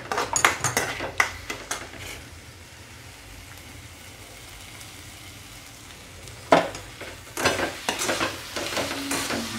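A steel spatula scrapes and taps against a steel kadhai as eggplant bharit is stirred and fried, with a faint sizzle underneath. There are clusters of scraping strokes at the start and again from about two-thirds of the way in, and in between only the faint frying hiss.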